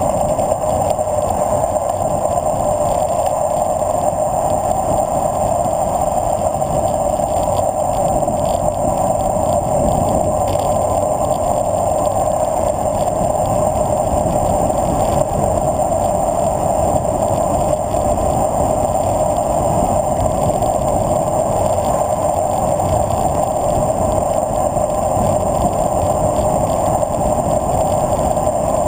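Road bike descending at speed: a steady rush of wind over the handlebar-mounted camera with tyre rumble on the asphalt underneath, unbroken throughout.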